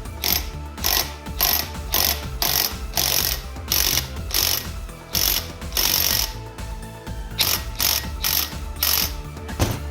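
Ratchet wrench clicking in quick repeated strokes, roughly two a second.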